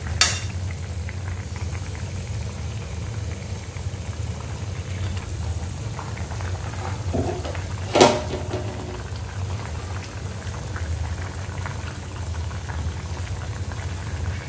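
Fish and potato curry simmering and bubbling in a kadhai, a steady low bubbling, with two sharp clicks, one just after the start and one about eight seconds in.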